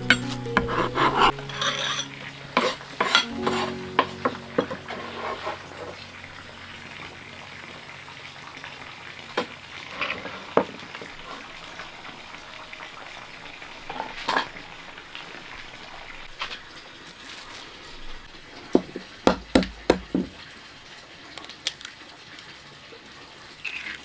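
A steady sizzling hiss with scattered sharp clinks and knocks, the sound of food frying in a pan while being stirred with a utensil. A quick run of about five knocks comes around two-thirds of the way through, and a few held tones die away in the first few seconds.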